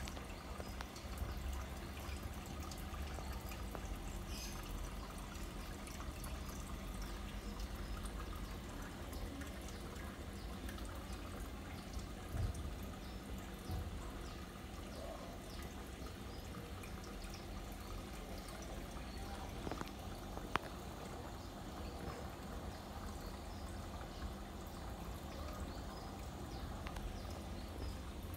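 Aquarium water bubbling and trickling steadily, with a couple of short knocks.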